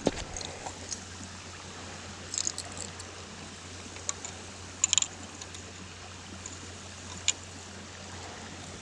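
Creek water running steadily, with a few short clicks or knocks scattered through it.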